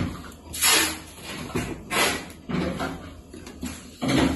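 Plastic tube frame parts and fabric panels of a clothes rack being handled during assembly: short knocks, clatters and scrapes, with about three louder ones a second or two apart.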